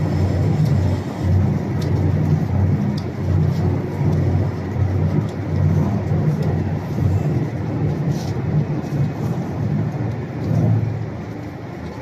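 TMR feed mixer running, its single auger turning through a dual planetary reducer: a steady low mechanical drone that swells and fades in a rough rhythm, with a few faint clicks. It eases off a little near the end.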